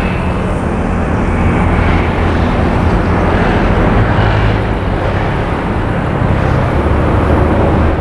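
Road traffic passing close by: a steady mix of engine and tyre noise, with a low engine hum that shifts as different vehicles go past.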